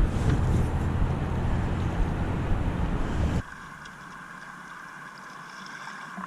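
Wind buffeting the microphone over rushing river water, a loud, even rumble that cuts off suddenly about three and a half seconds in, leaving a much quieter hiss with a faint steady high tone.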